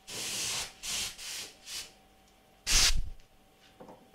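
CNC router with a spiral end mill cutting plywood, heard as a string of short hissing bursts and then one louder, heavier burst about three seconds in.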